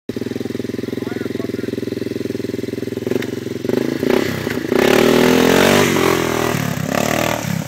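Yamaha Big Bear ATV's single-cylinder four-stroke engine idling with an even pulse, then revving up from about four seconds in as the quad pulls away.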